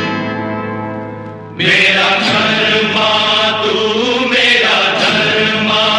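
Background music: a bell-like struck tone rings and fades, then about one and a half seconds in a loud chanted vocal line with instruments comes in.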